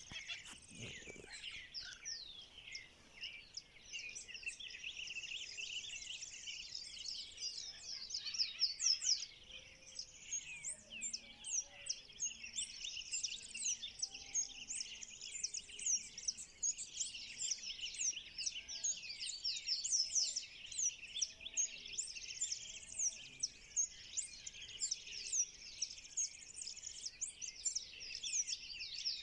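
Dawn chorus of many birds calling at once: a dense, unbroken mass of high chirps and quick sweeping notes. Fainter, lower calls come in now and then through the middle.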